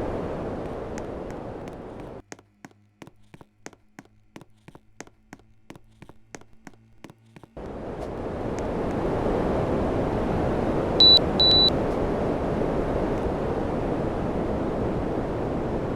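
Air conditioner fan blowing a steady rush of air that fades, then stops for about five seconds, leaving a faint hum and regular ticking two to three times a second. The airflow then starts again and builds, and about two-thirds of the way through the unit gives two short high beeps.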